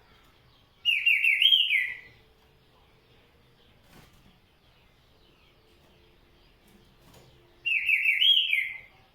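Green-winged saltator (trinca-ferro) singing two loud, short phrases of quick rolling whistled notes, one about a second in and the other near the end.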